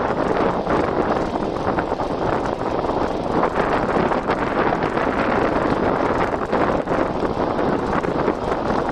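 Steady wind noise buffeting the microphone of a phone carried on a bicycle moving at about 37 km/h.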